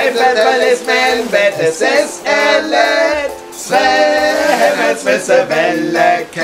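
Voices singing a cappella in phrases of a second or two, with short breaks between them.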